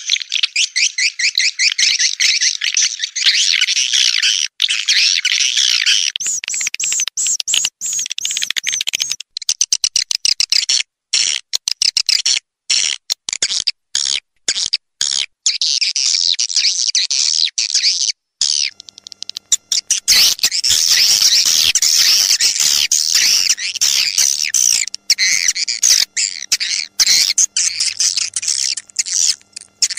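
Edited recording of edible-nest swiftlets calling: dense, rapid twittering chirps. Between about 6 and 19 seconds in the sound is chopped into stuttering bursts with short silent gaps, then runs continuous again. It is a swiftlet lure call (suara panggil), made to draw swiftlets into a nesting house.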